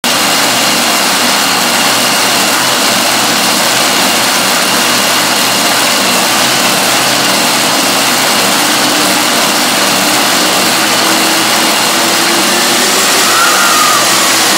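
Loud, steady engine noise from a pulling vehicle, with a faint whine that rises and falls near the end.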